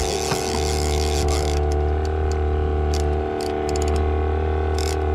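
Boat engine running steadily at trolling speed, with irregular sharp clicks from a fishing reel's ratchet as a hooked salmon is reeled in, most of them in the latter part.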